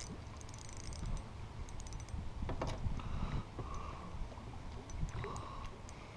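Spinning fishing reel being handled and cranked, its gears giving small, irregular clicks, over a low rumble of wind on the microphone.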